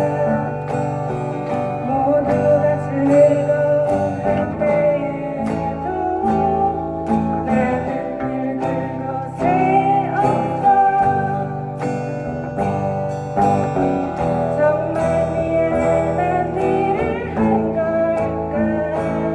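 A live band playing a song: guitars over a steady drum beat, with a melody line that bends in pitch.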